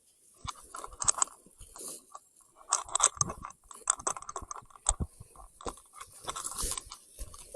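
Irregular crunching, crackling and sharp clicks of close handling noise, starting about half a second in and going on in uneven clusters.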